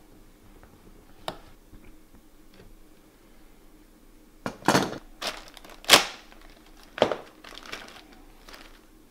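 Clear plastic parts bag crinkling in several loud bursts from about halfway through as it is handled and opened. There is a single sharp click a little after a second in.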